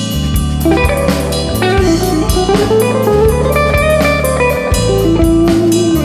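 Blues-rock band playing an instrumental break: a lead guitar line with bent, sliding notes over bass and drums.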